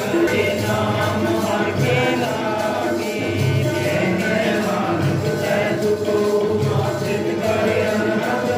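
Sikh devotional hymn singing (kirtan) with instrumental accompaniment, running steadily with no breaks.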